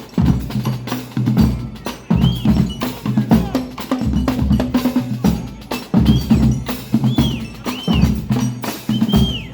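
Marching band drum line playing a driving rhythmic cadence of bass and snare drums. Short high notes that rise and fall sound over it several times.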